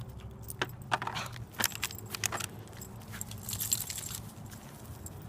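Small metal pieces jingling, the dogs' collar tags and leash clips, with a scattered run of light clicks and knocks and a brighter jingle about three and a half seconds in.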